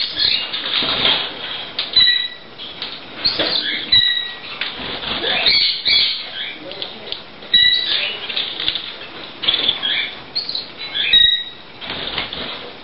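Canary chicks begging: rapid, high-pitched chirping and wing fluttering, broken by a short clear call four times, a few seconds apart.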